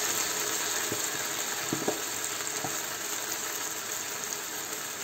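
Grated tomato and sofrito sizzling in a frying pan, a steady frying hiss that eases a little as it goes, with a few faint clicks.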